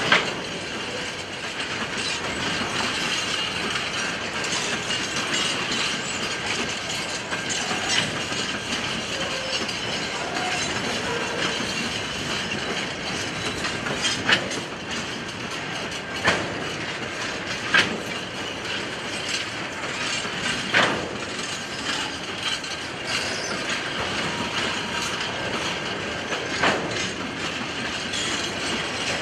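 A long train of empty wheat wagons rolling past with a steady rolling rumble, broken by several sharp clanks a few seconds apart.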